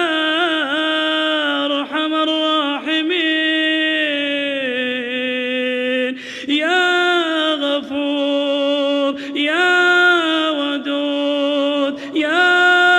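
A man's voice chanting an Arabic supplication (dua) unaccompanied, drawing out its words in long melodic phrases. The pitch slides between held notes, with short breaks for breath between phrases.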